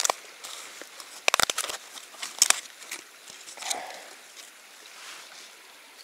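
A few sharp clicks and rustles of something being handled, over the steady babble of a shallow stream; the clicks fall in the first half and the water alone goes on after.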